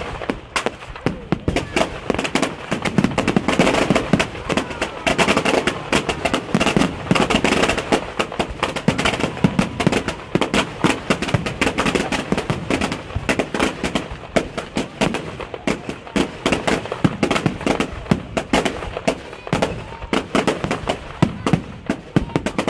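Fireworks display: many shells bursting in quick succession, loud rapid bangs several a second over continuous crackling.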